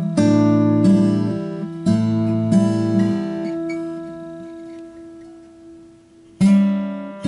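A 1997 Martin D-28 dreadnought acoustic guitar is played, test-played after its crack and binding repair. A few chords are picked and strummed, then one is left to ring out and fade for a few seconds, and another strum comes near the end.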